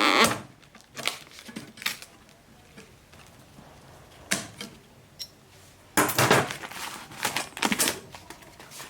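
Intermittent clattering and clinking of metal objects being handled, in short bursts with quiet gaps between; the longest stretch of clatter comes about six seconds in.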